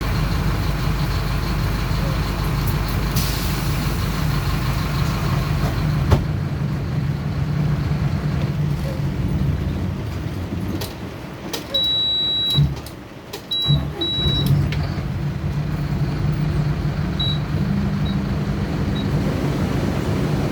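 Bus engine running steadily. Its hum drops away briefly about thirteen seconds in. A high electronic beep sounds around twelve seconds in, followed by several short beeps.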